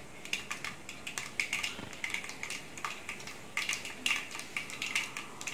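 A tempering of mustard seeds and split black urad dal frying in hot oil, crackling with irregular sharp pops several times a second as it browns toward golden.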